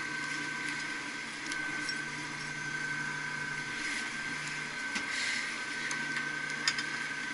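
Steady hum of running machinery with a high whine, and a few light metallic clicks, the sharpest about two-thirds of the way through.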